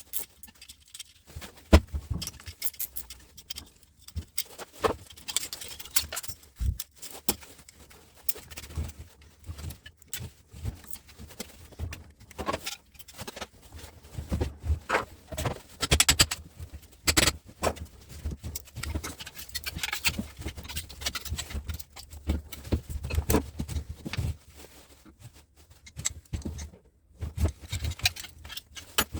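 Irregular clinks, clicks and knocks of metal parts and hand tools as a heavy electrical switch is taken apart by hand.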